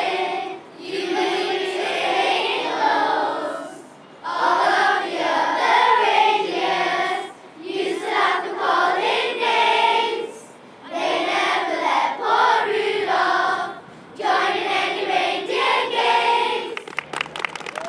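Children's choir singing a Christmas carol unaccompanied, in phrases of about three seconds with short breaths between. The singing stops about a second before the end.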